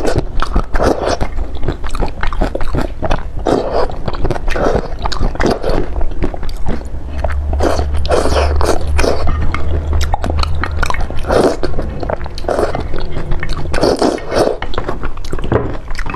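Close-miked eating: wet chewing and slurping of saucy food, with many quick mouth clicks and smacks.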